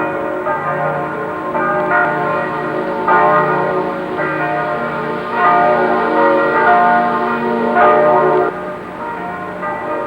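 Church bells ringing, several bells struck one after another with their tones ringing on and overlapping; the loudest bells stop about eight and a half seconds in.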